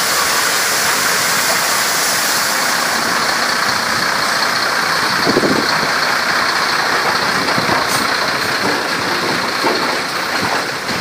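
Water jets of a drive-through wheel wash spraying the wheels and chassis of a slowly passing dump truck: a loud, steady hiss, with the truck's engine running underneath.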